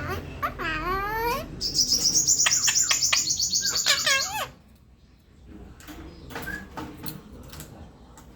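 Red-breasted parakeet calling: a quick run of bending chirps, then a loud, harsh screech lasting nearly three seconds that cuts off about four and a half seconds in, followed by a few faint clicks.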